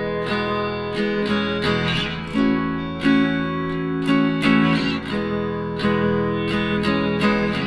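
Background music: a strummed acoustic guitar playing chords in a quick, steady rhythm.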